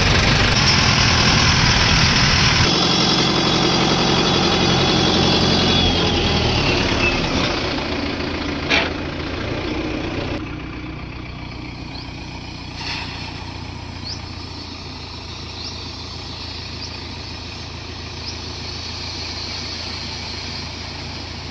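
Mahindra Yuvo tractor's diesel engine running: loud while driving, then quieter and steady from about ten seconds in as it stands at idle while the tipper trailer unloads.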